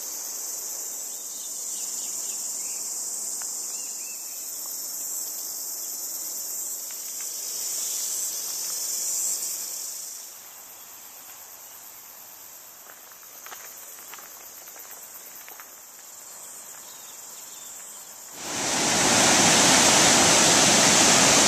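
A steady, high-pitched insect chorus in the bush, thinning about halfway through. About 18 seconds in it gives way abruptly to the loud, steady rush of Huka Falls, the Waikato River's white water pounding through its rock chasm.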